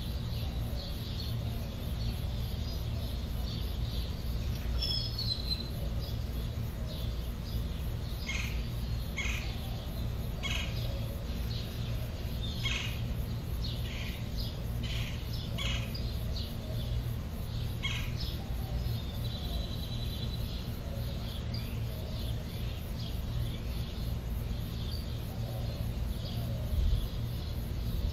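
Ambient sound bed: a steady low hum throughout, with scattered short high chirps clustered through the middle and a thin held high tone just after them.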